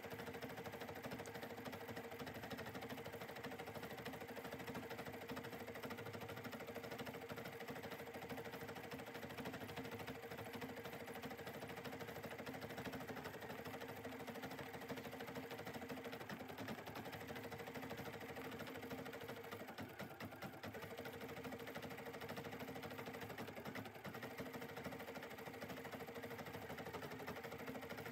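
Bernina 790 embroidery machine stitching continuously: a steady mechanical whir with a constant hum, dipping briefly about two-thirds of the way through.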